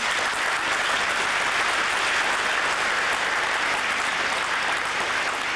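A group of onlookers applauding, a dense steady patter of clapping.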